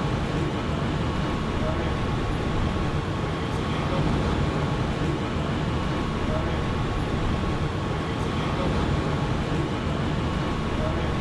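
Steady low rumble of vehicle traffic, with a faint steady high tone running through it.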